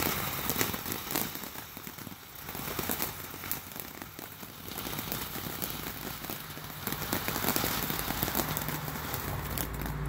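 Ground fountain fireworks spraying sparks: a steady hiss full of rapid, irregular crackling pops.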